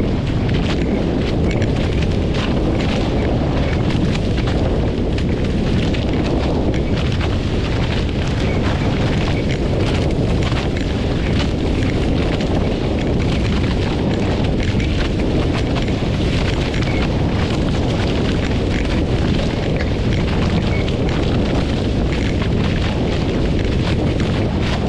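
Wind buffeting a camera microphone: a loud, steady low rumble broken by many short gusts.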